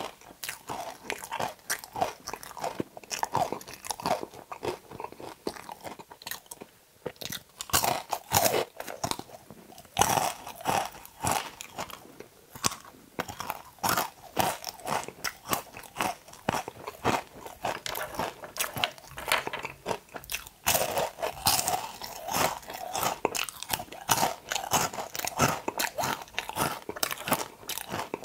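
Close-miked crunchy bites and chewing of okra, a quick irregular run of sharp crunches with short pauses.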